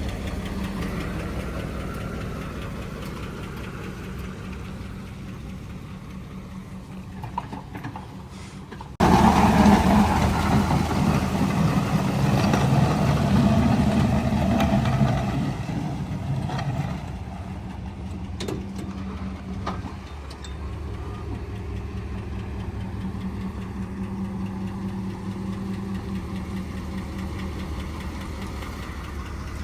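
Snow-plow truck's engine running steadily. About nine seconds in the sound suddenly jumps louder and rougher for several seconds, then eases back to the steady running.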